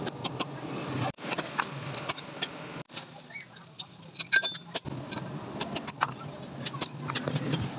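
Hand hammer striking a steel punch held in tongs, driving holes through the tang of a knife blank forged from an old file on a steel block anvil: a string of short, sharp metallic clinks at uneven intervals.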